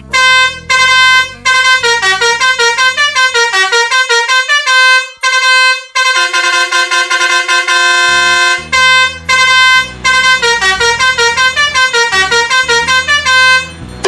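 Telolet horn, a multi-trumpet musical truck air horn, playing a fast bouncy tune of short honked notes, with a longer held chord a little past the middle.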